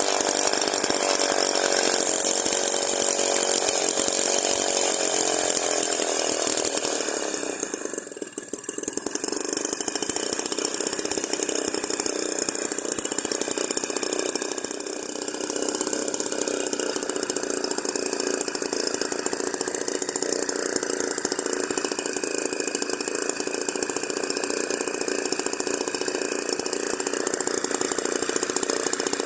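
Miniature 6 cc two-stroke engine running steadily at high revs. About eight seconds in it briefly dips almost to stalling and picks back up, with a smaller dip about halfway through.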